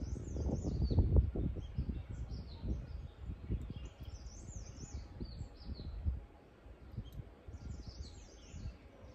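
Small birds chirping over and over in quick, high phrases, over a low rumble that is loudest in the first few seconds and drops away about six seconds in.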